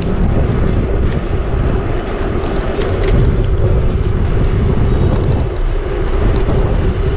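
Wind rumbling on the microphone of a bicycle riding downhill, with tyre and road noise under it and a few light clicks in the second half.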